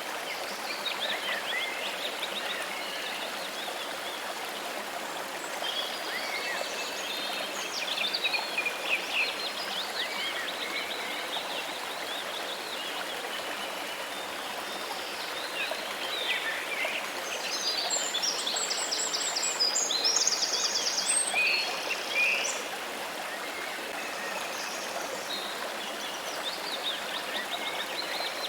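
Steady rush of running water with birds chirping and singing over it; the birdsong comes in short phrases and is busiest, with quick trills, about two thirds of the way through.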